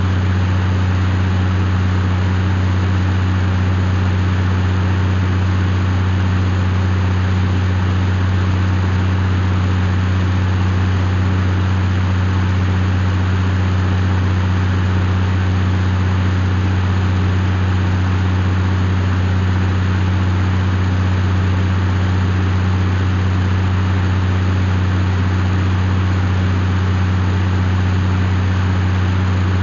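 Case IH CVX 150 tractor running at a constant speed, a steady deep hum that does not change.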